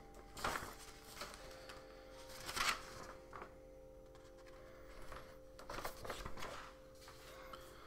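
Paper rustling in a few short swishes, like pages being flipped, with faint sustained tones underneath from about a second and a half in.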